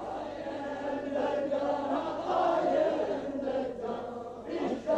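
Many men's voices chanting together in a devotional recitation, with several pitches sounding at once and a short dip near the end.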